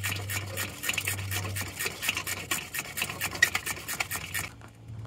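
Ratchet wrench clicking quickly and evenly, about nine clicks a second, as a lower alternator mounting bolt is run in; the clicking stops about four and a half seconds in. A low steady hum runs under the first couple of seconds.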